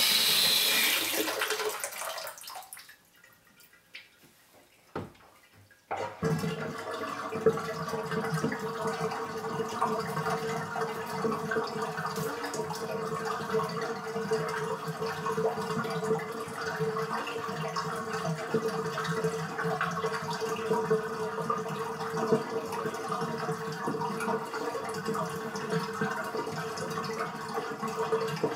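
Bathtub faucet running into a nearly full tub, turned off in the first two seconds. After a few quiet seconds with a couple of faint clicks, the drain opens about six seconds in and the tub drains with a steady gurgling rush and a constant droning tone.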